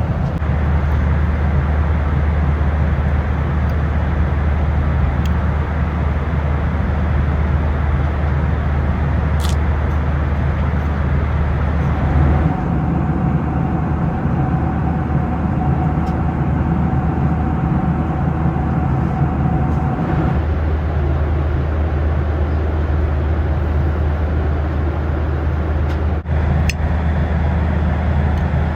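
Steady airliner cabin noise of a Boeing 737-800 in cruise, a constant low rushing drone. A faint steady tone joins it for several seconds in the middle, and there is a brief click near the end.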